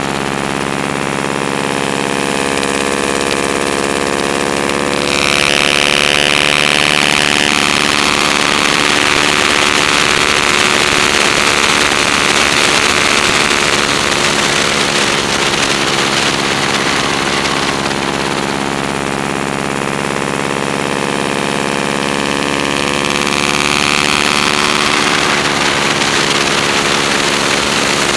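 Stearman biplane's radial engine running steadily at flying power, heard from out on the wing. Over it a rushing hiss, likely airflow past the wing-mounted camera, swells about five seconds in and eases off near the end.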